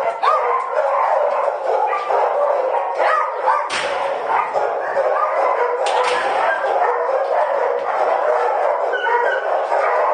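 Many kennelled dogs barking and yelping at once in a continuous din, with two sharp knocks about four and six seconds in.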